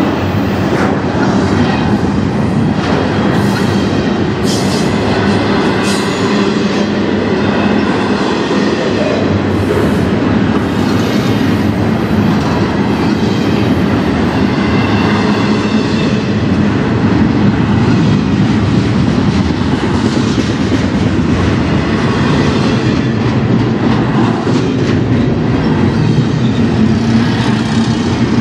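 Double-stack intermodal freight cars rolling steadily past close by: a loud, continuous rumble of steel wheels on rail, with clatter from the cars and their container loads.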